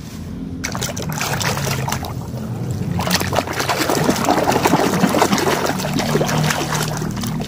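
Water splashing and churning as a hand swishes a muddy plastic toy about in a tub of water to wash it, the splashing getting louder and busier about three seconds in.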